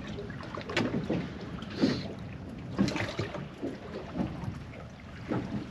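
Water slapping and knocking irregularly against the hull of a small fishing boat drifting at sea, over a steady low rumble of wind and sea.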